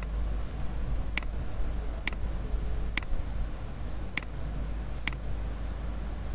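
Computer mouse clicking, six sharp clicks about a second apart, over a steady low hum.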